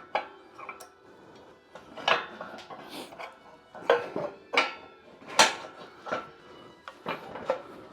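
Metal gym equipment clanking and clinking: about eight sharp, separate knocks over several seconds, the loudest about five and a half seconds in.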